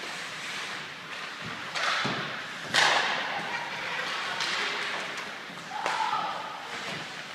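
Ice hockey play in a rink: a series of sharp knocks and thuds from sticks, the puck and players striking the boards and glass, over a steady rink hiss. The loudest knock comes about three seconds in.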